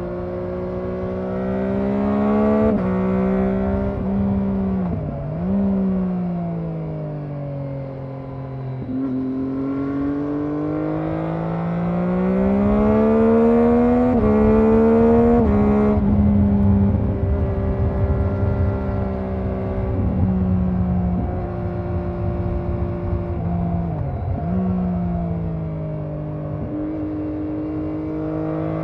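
Triumph Daytona 675R's inline three-cylinder engine heard onboard, its revs climbing and dropping as the bike is ridden through several gear changes, with sharp dips and jumps in pitch at the shifts. Wind rush sits underneath.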